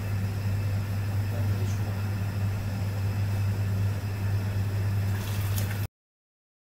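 Steady low hum and rushing noise of a commercial kitchen's wok range and its ventilation. It cuts off abruptly near the end.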